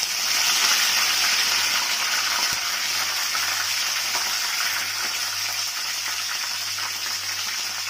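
Curry leaves and dried red chillies sizzling in hot oil in a kadai as they are tempered. The hiss is loudest just as the leaves go in and eases off slowly.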